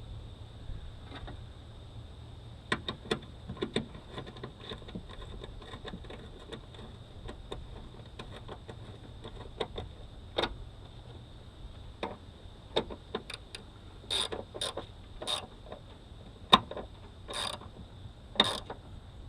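Tools and metal hardware clicking and clanking while a car battery is swapped, in irregular sharp knocks that grow louder and more frequent in the last few seconds. A steady thin high tone runs underneath.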